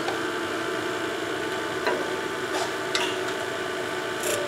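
Wood lathe running steadily with nothing cutting, a hum and hiss with a few faint ticks.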